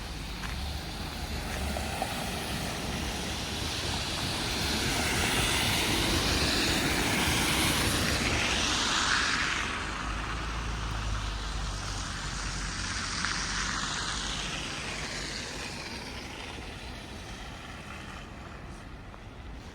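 A motor vehicle passing on a snowy street: its noise swells for several seconds, drops off about halfway through, then fades away slowly.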